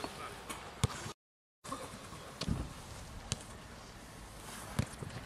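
Quiet open-air ambience of a football game on artificial turf, with a few short sharp thuds of the ball being kicked. The sound drops out completely for about half a second, a second in.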